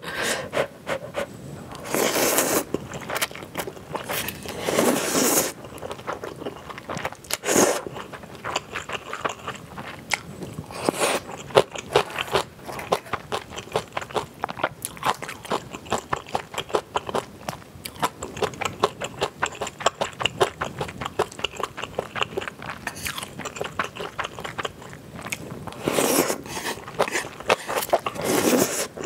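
Person eating instant ramen noodles close to the microphone: several long slurps of noodles between stretches of wet chewing full of quick mouth clicks.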